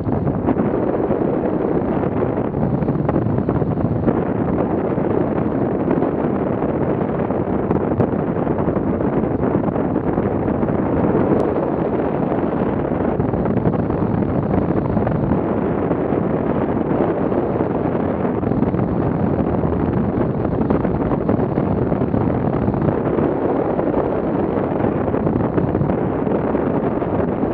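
Steady wind rush buffeting the microphone of a camera mounted on a hang glider in flight.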